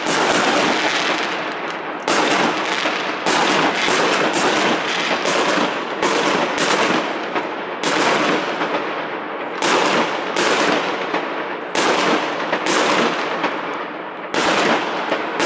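Aerial fireworks bursting overhead: a rapid series of sharp bangs, roughly one a second, each with a long echoing tail that runs into the next.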